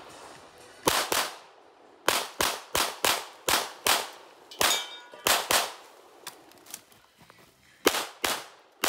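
CZ Shadow 2 9mm pistol fired rapidly, about a dozen shots mostly in pairs about a third of a second apart, with a pause of about two seconds before a last pair near the end. A brief metallic ring follows one shot about halfway through.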